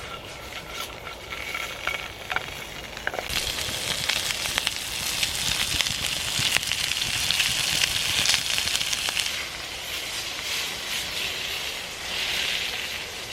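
Sausages frying in a pan on a Bushbox XL stove: a steady sizzle full of small crackles that swells about three seconds in.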